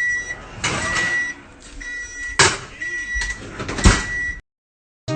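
An electronic beeper sounding a high beep about once a second, over bursts of clattering and knocking; it all cuts off suddenly near the end.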